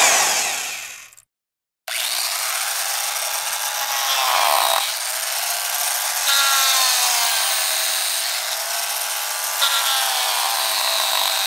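A harsh, continuous buzzing drone whose pitch slowly sags and rises again several times. Before it, a noisy burst fades away in the first second, followed by a short gap of silence.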